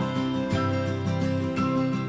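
Background music: acoustic guitar, plucked and strummed, with notes changing about every half second.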